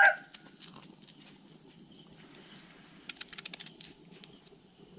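A knife paring the skin off a green mango: a quick run of small crisp clicks about three seconds in, over faint steady background noise. At the very start the tail of a rooster's crow cuts off.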